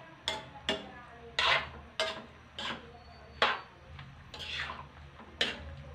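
A cooking utensil scraping and clinking against an aluminium wok as chopped vegetables are stirred and tossed, in short irregular strokes about once a second.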